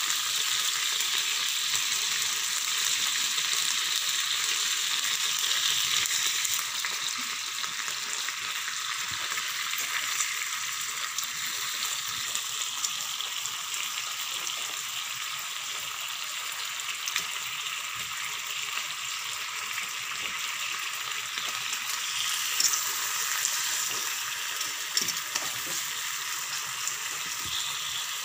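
Marinated beef tapa with garlic frying in a pan, a steady crackling sizzle that eases slightly after about six seconds, with a few brief louder crackles near the end.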